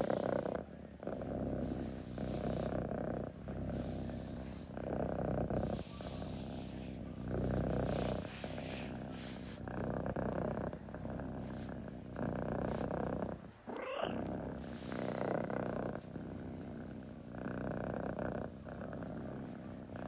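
Domestic cat purring contentedly, the purr swelling and fading with each breath about every second and a half. About two-thirds through, a short rising squeak briefly breaks the purr.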